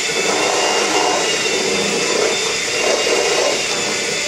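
Electric hand mixer running with a steady whine, its beaters churning cake batter in a stainless steel bowl.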